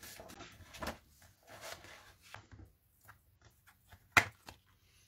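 Clear plastic stamp packaging handled on a craft desk: soft rustling of the plastic and a series of light clicks, with one sharper click a little past four seconds in.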